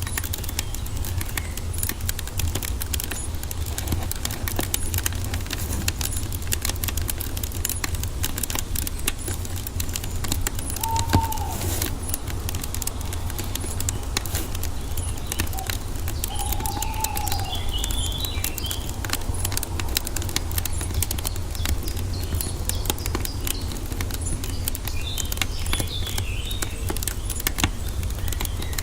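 Wood fire crackling and popping over a steady low rumble, while birds call now and then: a short curved call a little over ten seconds in and again a few seconds later, with bursts of high chirps in the second half.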